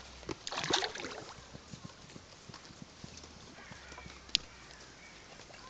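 Pond fish feeding on bread at the water surface: a splashy burst near the start, then scattered soft smacks and pops of mouths at the surface, with one sharp click about four seconds in.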